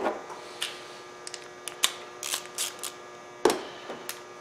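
Small metallic clicks and clinks as 10 mm bolts are handled and started by hand into the air box with a socket on a knurled extension, with one louder knock about three and a half seconds in. A steady low hum runs underneath.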